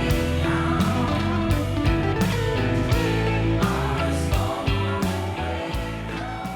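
Background music: a rock-style track with guitar and a steady beat.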